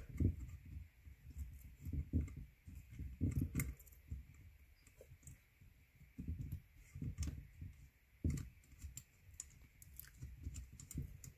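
Fingers working a stuck float loose from a Weber IDA carburetor body: faint, irregular small knocks and clicks of light metal parts being handled.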